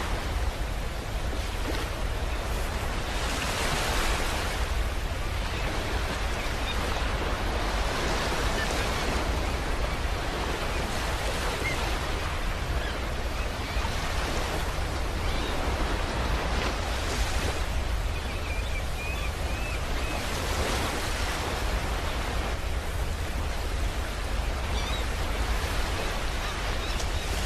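Space-ambience sound track billed as the sound of the star UY Scuti: a steady rushing noise over a deep rumble, swelling and easing every four seconds or so like surf.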